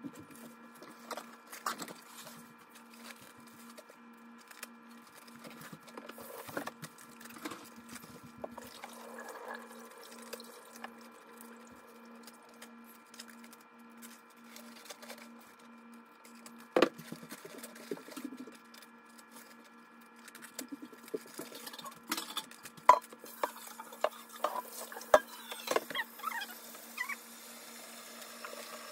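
Crackling, rustling and snapping of iceberg lettuce leaves being pulled off the head and handled at a kitchen sink, with a few sharp knocks of a metal pot against the sink. Near the end the tap starts running into the pot.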